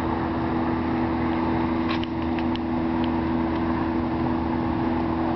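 A steady mechanical hum with two low, steady tones in it, unchanging throughout.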